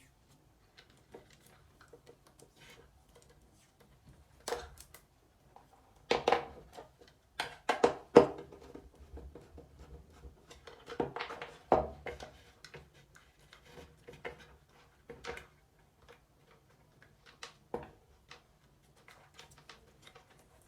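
Irregular clicks, taps and small knocks from hands working a wall light switch and its wires, with a cluster of louder knocks about six to eight seconds in and another near twelve seconds.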